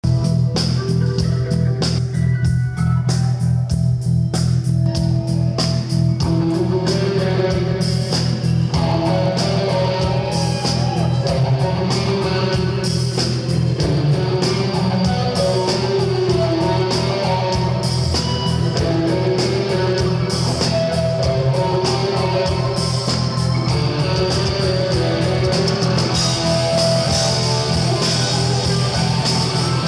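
Live rock band at full volume: an electric guitar, a sunburst Les Paul-style played through stage amplifiers, plays melodic lead lines over bass, keyboards and a steady, driving beat.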